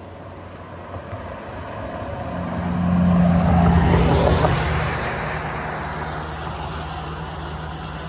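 A motor vehicle drives past on a road, its engine and tyre noise growing louder to a peak about three to four seconds in, then fading away.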